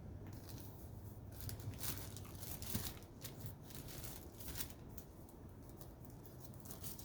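Paper packaging being handled: intermittent soft rustling and crinkling.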